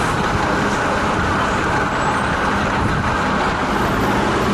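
Steady city street traffic noise, with cars and a bus passing close by.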